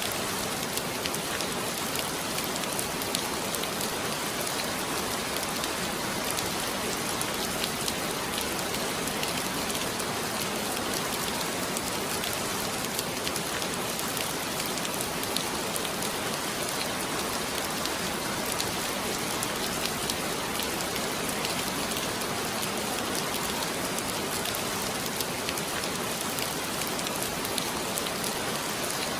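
Heavy rain falling steadily, a dense hiss with many fine drop ticks on a hard surface.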